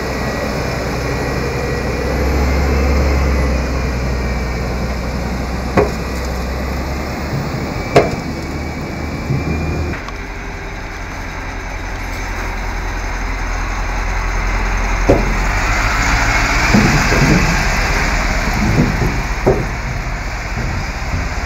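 Armoured 4x4 and 6x6 military vehicles driving past on a runway: steady engine and tyre noise with a deep hum, broken by a few sharp knocks. In the second half there are scattered knocks and clanks as a heavy armoured vehicle moves up onto a metal cargo ramp.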